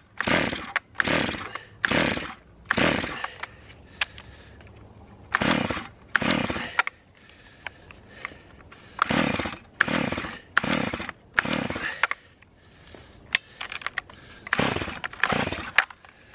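Recoil starter of an old two-stroke Stihl chainsaw being yanked about a dozen times in short runs of two to four pulls, with pauses between. Each pull turns the engine over briefly but it doesn't catch, even with starting fluid sprayed in.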